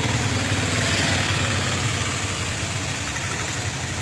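A motor vehicle engine idling, a steady low hum under a wash of outdoor noise.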